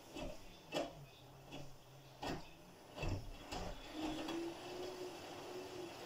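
Front-loading washing machine tumbling a load: the laundry drops and thumps in the turning drum about five times, over the steady hum of the drive motor, which falls away after about a second and comes back about four seconds in.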